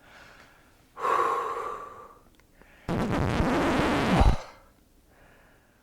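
A man's sighing exhale, then a loud, forceful blow of breath lasting about a second and a half that stops abruptly, acting out being too hot.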